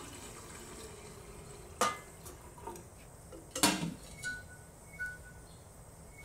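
Kitchen clatter at a stove: two sharp knocks of pots or utensils, with a few lighter clinks between them. From about two-thirds of the way in, short high tones repeat roughly every three-quarters of a second.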